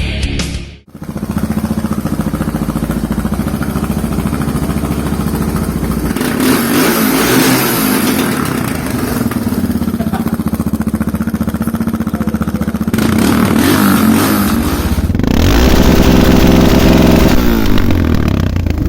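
A Suzuki DR650's single-cylinder four-stroke engine running through an aftermarket Kimoto Superbike muffler. It idles with a fast, even pulse and is revved up and let back down a few times, then held at higher revs before dropping back near the end. A snatch of rock music cuts off about a second in.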